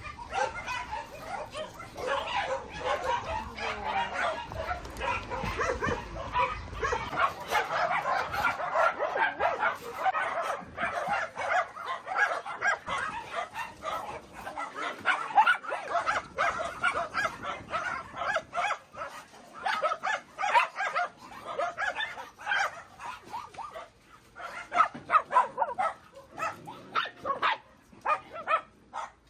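A pack of shelter dogs barking and yipping together, a constant chorus of overlapping barks.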